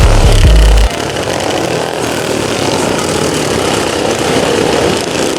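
Racing lawn mower engines running hard on the track, a dense, buzzy drone like small motorcycle or chainsaw engines. A very loud low rumble covers the first second and cuts off suddenly.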